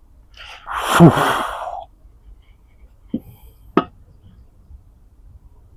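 A person's loud, breathy sigh or exhale lasting about a second and a half, followed by two short knocks a little over half a second apart.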